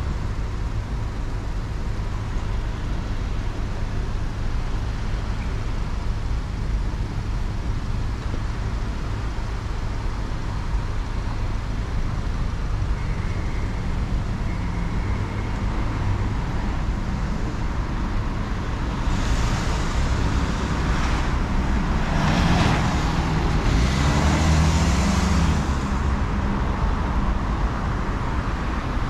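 Road traffic at a city intersection: a steady rumble of car engines and tyres. About two-thirds of the way through it grows louder for several seconds as vehicles pass close by.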